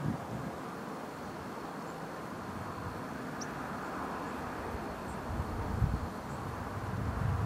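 Outdoor field ambience: a steady hiss with a faint, thin high tone, and low wind buffets on the microphone from about five seconds in.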